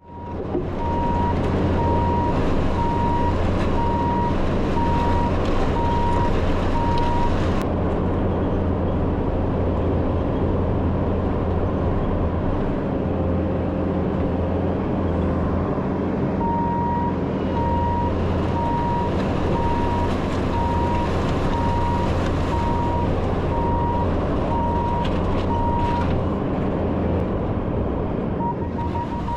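Diesel engine of heavy equipment running steadily, with a backup alarm beeping about once a second as the machine reverses; the beeping stops for several seconds in the middle and starts again.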